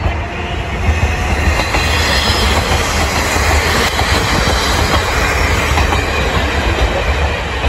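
KiHa 37 diesel railcars passing close by: a loud, steady rumble of engines and wheels running on the rails.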